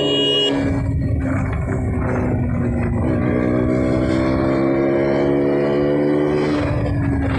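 KTM RC 200's single-cylinder engine through its stock exhaust, pulling under throttle. It is rough and noisy at first, then its pitch climbs steadily as the bike gains speed, with a short break near the end.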